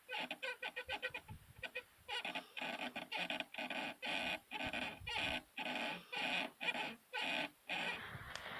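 Driver's seat-belt buckle mount on a 2019 Lada Vesta squeaking over and over, about two squeaks a second. The squeak comes from dry washers in the mount, which grease between the washers cures.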